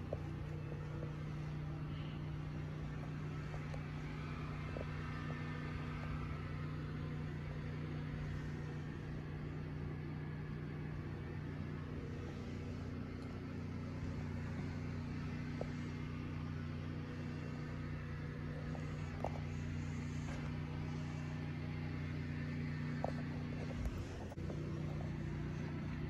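A steady low machine hum made of several held tones, with a few faint clicks and a short dip near the end.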